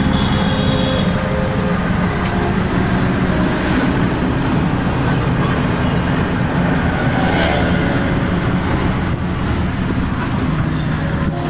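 Steady road noise from inside a moving vehicle: a low engine hum under rushing air and traffic noise.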